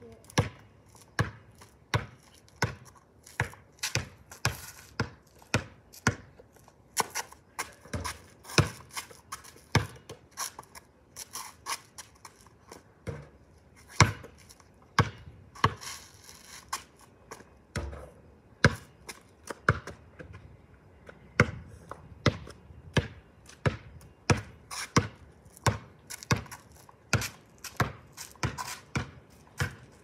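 Basketball dribbled on a concrete driveway: sharp bounces in a steady rhythm of about two a second, with a couple of brief pauses.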